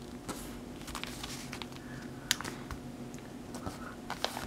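A sheet of paper being folded and creased by hand: soft rustling with scattered light taps and clicks, one sharper click about halfway through.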